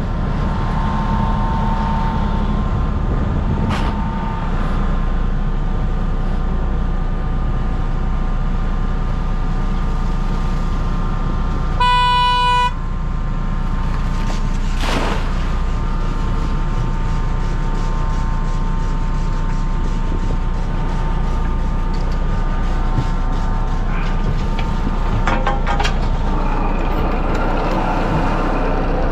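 Fishing boat's engine running steadily under way, a loud low drone. About twelve seconds in, a single short electronic beep sounds for under a second.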